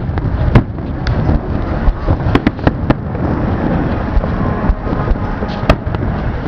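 Aerial fireworks shells bursting in a display: irregular sharp bangs, several close together about two and a half seconds in and another near the end, over a steady low rumble.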